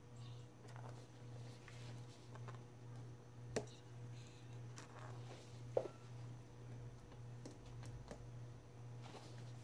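Quiet room tone with a steady low hum and a scattering of faint clicks, two of them sharper: one about a third of the way in and one just past halfway.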